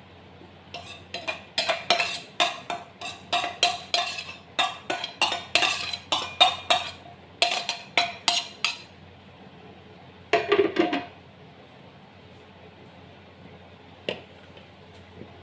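A spoon tapping and knocking against the rim of a small bowl to shake grated carrot out, a run of sharp clinks about three a second for several seconds. A brief louder clatter comes about ten seconds in.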